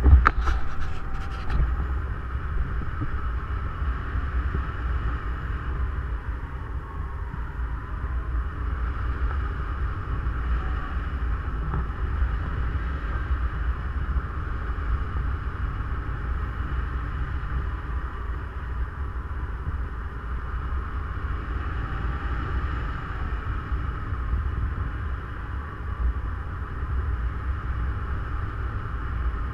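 Airflow rushing over the camera microphone of a paraglider in flight: a steady wind rumble, with a brief crackle in the first second or so.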